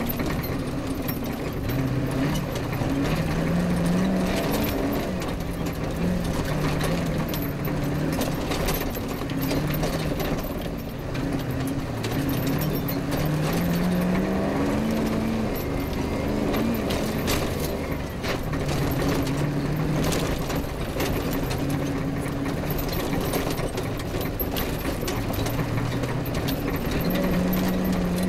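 An off-road rally car's engine heard from on board, its pitch climbing under throttle and dropping back again and again as it changes gear. Constant rattles and knocks from the car bouncing over rough ground run underneath.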